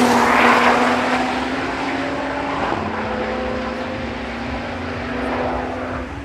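GT race car engine passing at speed, loudest at the start. It then holds a steady note that steps up in pitch once partway through and gradually fades away.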